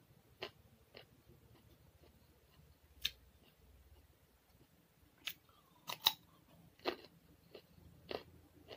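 Close-up eating sounds: a raw carrot stick bitten and chewed, a series of short, crisp crunches at irregular intervals, the loudest about six seconds in.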